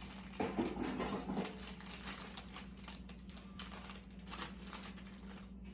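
Plastic crisp packet crinkling as it is handled and rummaged in, with a dense run of crackles about half a second to a second and a half in, then lighter crinkles.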